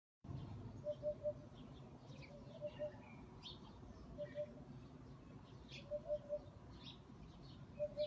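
Eurasian hoopoe calling its low 'oop-oop-oop': groups of two or three short notes, one group about every second and a half to two seconds, five times over. Thin high chirps of other small birds sound behind it.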